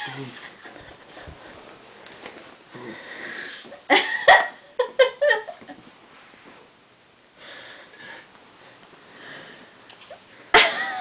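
A person's breathy wheezing, with soft hissing breaths and short loud voiced outbursts about four seconds in and again near the end.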